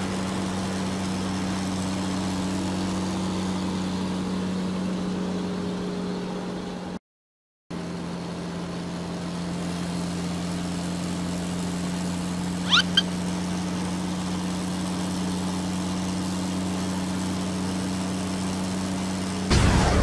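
A cartoon vehicle engine sound effect: a steady, even engine drone, cut by a brief gap of silence about seven seconds in. There are two short high chirps about thirteen seconds in, and a sudden loud rushing burst near the end as a cartoon smoke puff appears.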